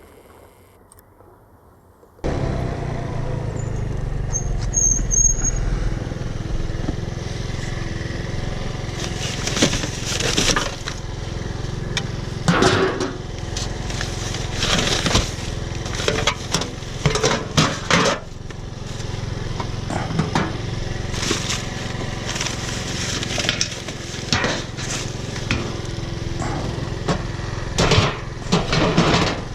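A motor runs steadily underneath repeated irregular clanks and crashes, starting abruptly about two seconds in.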